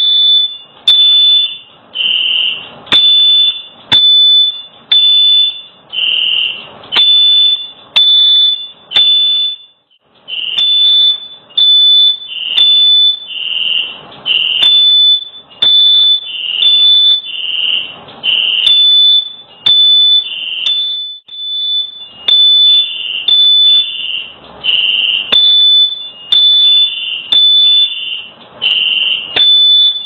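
Fire alarm going off, set off by smoke from a stove fire: loud, high-pitched electronic beeps starting suddenly and repeating about once a second.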